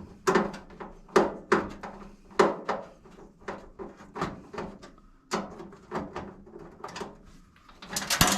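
Screwdriver and hands working a screw out of a range hood's metal panel: irregular sharp clicks and knocks, a few a second, with a quick run of clicks near the end.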